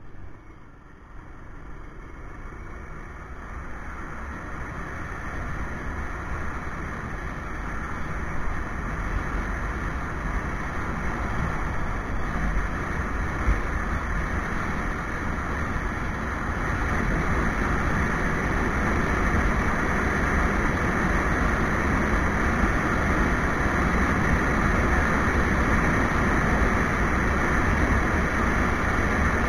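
Rushing wind and road noise from a street motorcycle ridden on a paved highway, picked up by a GoPro riding along. It grows louder over roughly the first half as the bike picks up speed after a speed bump, then holds steady.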